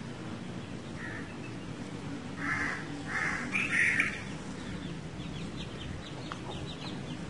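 Marker squeaking against a whiteboard as circles are drawn: a few short squeaks in the middle, over a low steady background hum.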